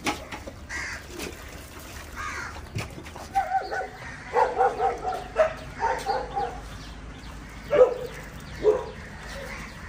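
Dog barking: a run of short barks about three to six seconds in, then two louder single barks near the end.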